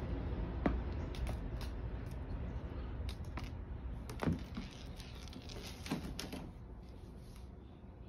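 Scattered light taps and scuffles as a cat pounces at a feather wand toy on a hardwood floor, over a low background rumble; the loudest tap comes about four seconds in.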